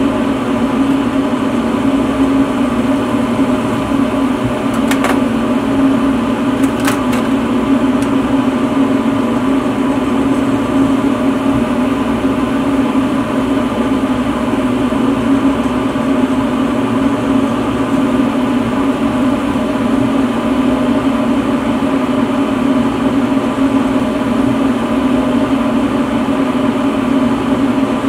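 Steady, unchanging drone of a lampworking torch burning at the bench, a hum mixed with the rush of gas. A few faint clicks come about five and seven seconds in.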